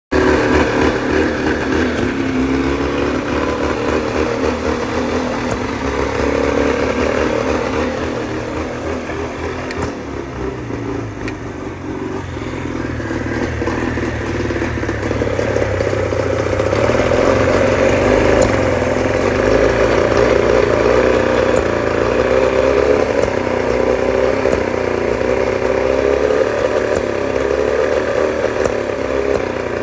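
1989 Johnson 40 hp two-stroke outboard motor running unevenly. It eases off from about eight seconds in, then picks up again and runs harder from about a quarter of a minute in. The owner suspects a misfire.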